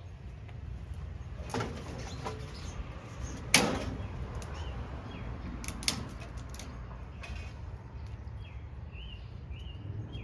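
A few sharp knocks and scrapes from working a piece of bamboo with a multi-tool knife, the loudest about three and a half seconds in, over a steady low rumble. A few short chirps come near the end.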